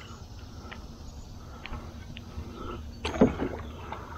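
Canoe being paddled: soft water and hull noise from the paddle, with a few faint ticks, then a louder knock about three seconds in, such as the paddle striking the canoe.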